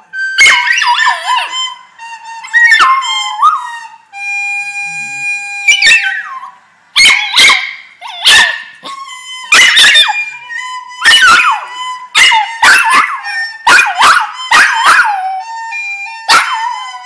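A small Maltese–Shih Tzu mix puppy howling along to music: a run of short, high howls and yips, each sliding down in pitch, about one a second. The music holds a long steady note under them, heard alone for a couple of seconds about four seconds in, before the howling starts again.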